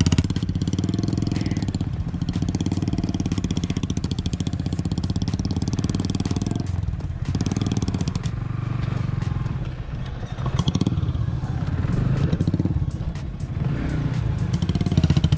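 Single-cylinder motorcycle engine running at low, steady revs. About seven seconds in the throttle eases off and picks up again, and once more around ten seconds. Scattered clicks and clatter run through it.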